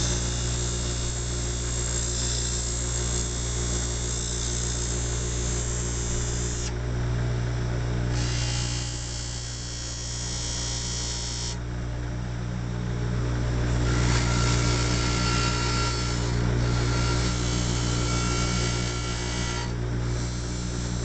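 Bench grinder running with a steady motor hum while a piece of metal is ground against the wheel. The high grinding hiss drops out briefly three times as the metal is lifted away.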